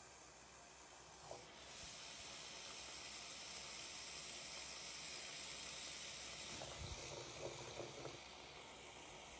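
Faint, steady hiss of a thin stream of tap water from a bathroom faucet pouring onto a cat's fur in the sink, with a few soft knocks near the end.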